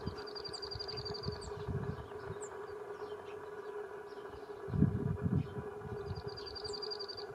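Outdoor field ambience with a steady hum from an unseen distant source. A small bird twice sings a short rapid trill, once at the start and once near the end, among a few thin falling chirps. Brief low rumbles of wind on the microphone come about five seconds in.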